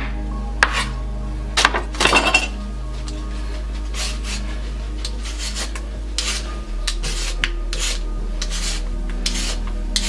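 A chef's knife cutting a root vegetable on a wooden chopping board, a few short knocks and scrapes, then a hand peeler scraping the skin off the root in repeated short strokes, about one or two a second. Background music plays throughout.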